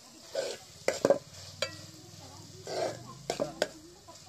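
A metal spoon stirring a thick mushroom fry in a metal pot: two scraping strokes through the food and several sharp clinks of the spoon against the pot, over a faint sizzle from the cooking pan.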